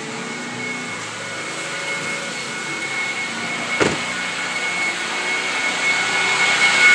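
Corded electric leaf blower running with a steady high whine, growing louder toward the end. A single sharp knock about four seconds in.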